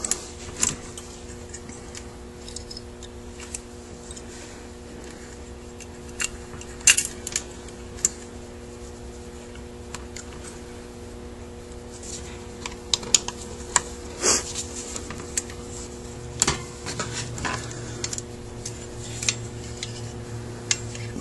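Small metal carburetor parts and the carburetor body being handled on a workbench: scattered light clicks, taps and clinks, with louder clinks about a third and two-thirds of the way in. A steady low hum runs underneath.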